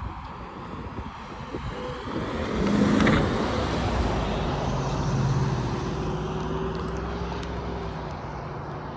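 Freight train rolling past: a steady rumble and rush of rail cars on the track that swells to its loudest about three seconds in, with a low steady hum in the second half.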